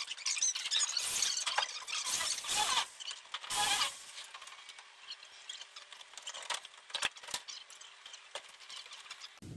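Electric drill running in short irregular bursts, driving screws into the gypsum ceiling boards, for the first four seconds or so. Then it goes quieter, with a faint steady hum and two sharp clicks about seven seconds in.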